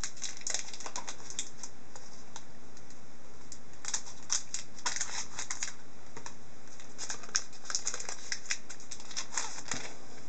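A hockey card pack being opened and its cards handled: irregular crinkles of the foil wrapper and light clicks and rustles of card stock, coming in short clusters.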